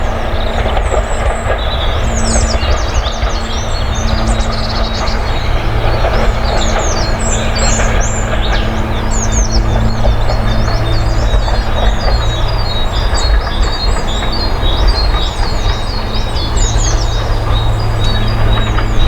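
Steady low rumble of a steam train running past, with a low hum held under it. Birds chirp and sing throughout.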